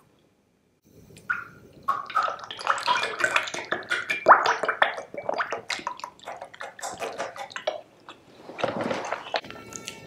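Guava juice poured from a carton into a glass tumbler, splashing into the glass with many small clicks; the pouring begins about a second in and stops near the end.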